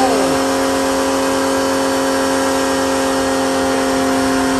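Kapicon KP 40 pressure washer running steadily at full pressure, its motor and pump giving an even, unchanging hum while the gun sprays a water jet.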